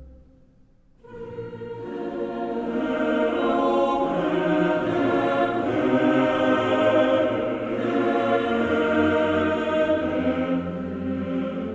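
Background choral music: a choir singing sustained chords, coming in about a second in after a brief near-silent gap.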